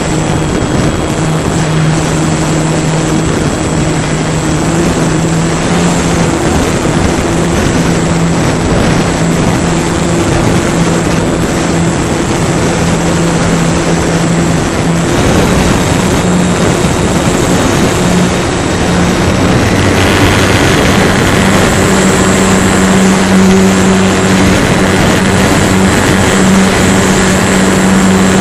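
Motor and propeller of a radio-controlled model airplane, heard close up from a camera on board, running steadily under a rush of wind. About two-thirds of the way in the drone steps up in pitch and gets slightly louder as the throttle is opened.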